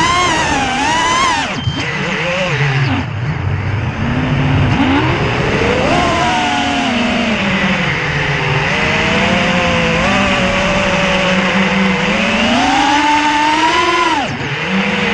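3D FPV quadcopter's brushless motors and propellers whining, the pitch rising and falling with the throttle, with sharp drops about three seconds in and again near the end.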